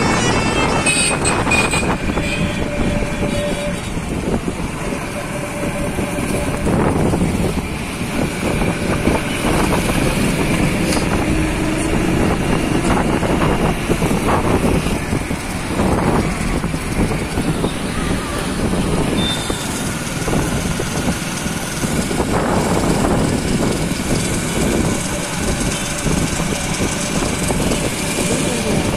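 Steady traffic and wind rush heard from a vehicle moving along a road bridge, with other vehicles passing.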